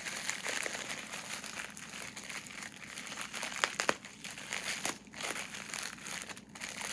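Plastic packaging crinkling as a toy figure is unwrapped from black plastic and bubble wrap. The crinkling is steady, with a few sharper crackles about three and a half to four seconds in.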